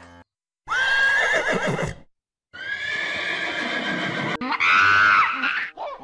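A horse whinnying twice: two long, loud, quavering calls, the first about a second in, the second longer and ending in a shaky rise and fall.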